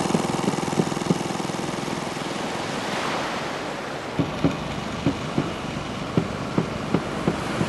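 Small fishing boat's engine running slowly on the water over a wash of sea and wind. From about halfway through, the engine beats out an even, slow knock of about two or three strokes a second.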